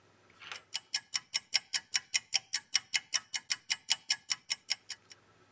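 Clock-ticking sound effect for an on-screen stopwatch timer: fast, evenly spaced ticks, about five a second, for around four seconds. A short whoosh comes just before the ticking starts.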